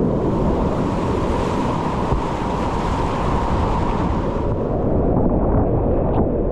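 Whitewater rapids rushing past a kayak, a loud steady hiss of churning water with wind buffeting the microphone. The bright top of the hiss thins out after about four and a half seconds.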